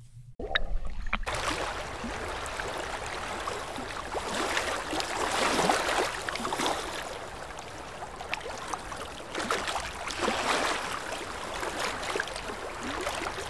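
Water rushing and splashing close to a camera held at the waterline, swelling louder and softer every few seconds.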